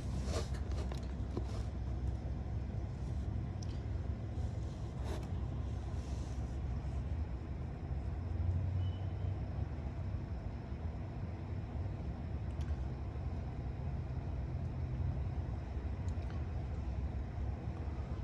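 Steady low rumble, with a few light clicks and knocks in the first six seconds.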